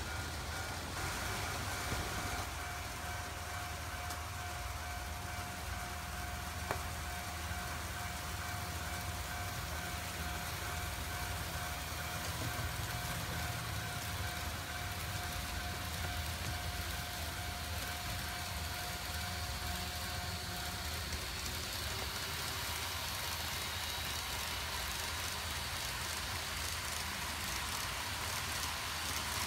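N gauge model trains running on the layout: a steady rumble and hiss of wheels rolling on the track, with a thin steady high tone that stops about two-thirds of the way through.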